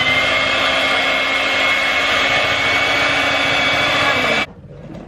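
Electric hand mixer whisking cake batter in a bowl: a loud, steady motor whine that climbs in pitch just after the start, then holds, and cuts off suddenly about four and a half seconds in.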